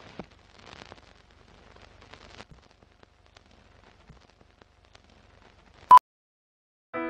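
Old-film countdown leader sound effect: faint crackle and scratches like a worn film soundtrack, then one short, loud, high beep about six seconds in.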